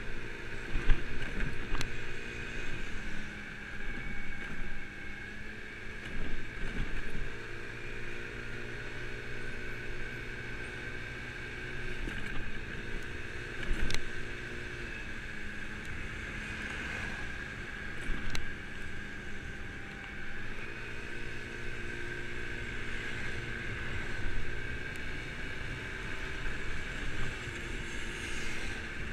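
Kymco Agility 50cc scooter engine running while riding, its pitch stepping up and down several times as the throttle opens and closes, over a steady rumble of wind and road noise.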